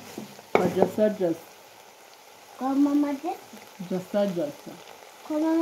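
Boneless beef pieces sizzling in an aluminium pot as a wooden spoon stirs them, with a low frying hiss throughout. A person's voice comes in four short stretches over it and is the loudest sound.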